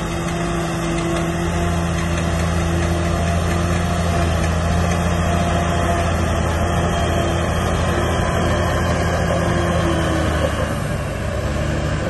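Heavy diesel engine of earthmoving machinery (a bulldozer or dump truck) running steadily under load, a constant low engine note over mechanical noise that eases slightly about ten seconds in.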